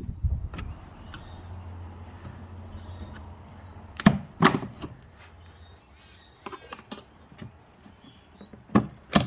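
A few sharp plastic knocks and clunks as the engine's plastic cover is unclipped and lifted off, over a low steady hum that stops about six seconds in.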